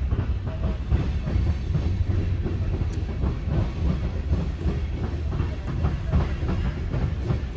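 Freight cars of a mixed freight train rolling past: a steady low rumble with the wheels clacking irregularly over the rail joints.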